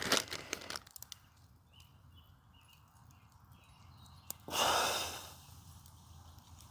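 A single breathy exhale, like a sigh, about four and a half seconds in: it starts suddenly and fades over about a second. Before it come a few faint crinkles and clicks in the first second, and faint high chirping in the background.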